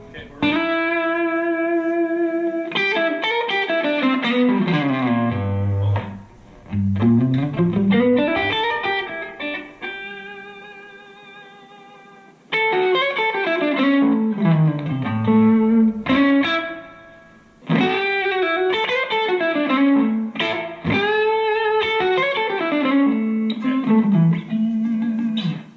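Electric guitar played through a Fender Blues Deluxe Reissue tube amp: an unaccompanied lead line of single notes, with quick runs sweeping down and back up between held notes. About ten seconds in, one note is left to fade out before the playing picks up again.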